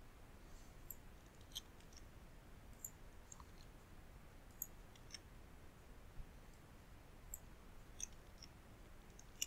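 Faint computer mouse clicks, about a dozen scattered irregularly over near-silent room tone.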